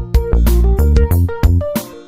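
Background music with a steady, heavy bass beat and short melody notes.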